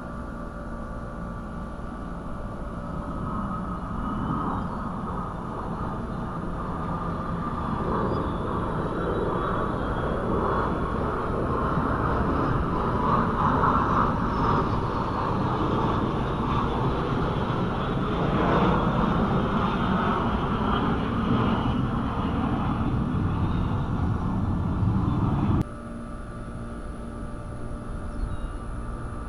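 Jet aircraft flying past over the airfield: a broad rushing jet noise that builds over several seconds, stays loud, and cuts off abruptly near the end.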